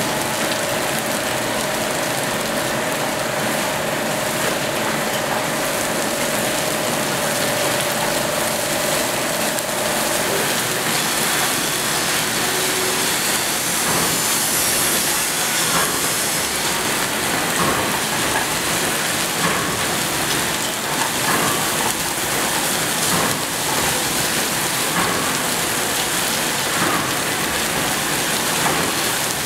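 Stir-fried noodles and bean sprouts sizzling steadily in a frying pan on a gas burner, with a spatula scraping and clicking against the pan from about eleven seconds in. A steady tone that is heard at first stops about ten seconds in.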